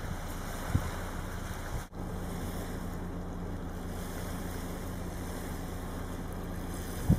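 Steady low rumble of surf and wind on the shore, with short thumps of wind buffeting the microphone about a second in and near the end, and a brief dropout about two seconds in.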